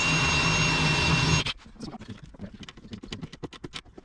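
Ridgid cordless drill running with a thin high whine as it drills through a sheet-metal floor patch, stopping abruptly about a second and a half in. After it comes a string of light clicks and taps as a hand pop-rivet gun is worked on the panel.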